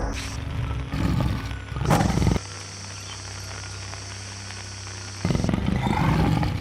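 Tiger roaring: two short roars about a second and two seconds in, then a longer roar near the end, with a steady hum between them.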